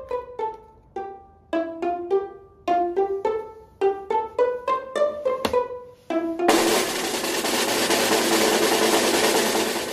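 Light background music of plucked pizzicato strings, note after note, then a steady drum roll from about six and a half seconds in.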